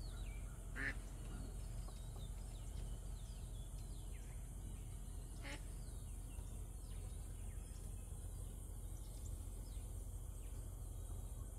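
Faint outdoor ambience: many short, falling bird chirps scattered throughout over a steady low hum, with one brief louder call just under a second in and a single click midway.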